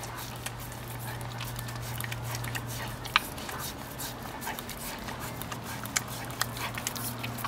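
A husky licking the rubbery bristles of an Orapup tongue-cleaning brush: irregular wet licking and smacking clicks, with one sharper click about three seconds in. A steady low hum runs underneath.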